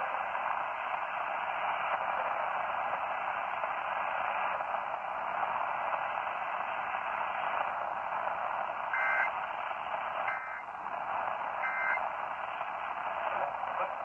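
Portable AM radio tuned to 830 AM giving out a steady static hiss. About two-thirds of the way in come three short two-tone data chirps, roughly a second and a half apart: the Emergency Alert System end-of-message code closing the test.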